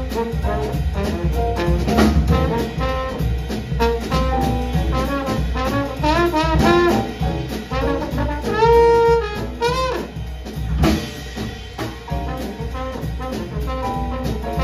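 Trombone solo over a jazz rhythm section of drums and upright bass: short sliding, arching phrases, then one long held note a little past the middle.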